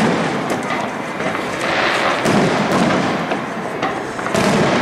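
Aerial firework shells bursting: a rapid, irregular series of bangs over continuous crackling.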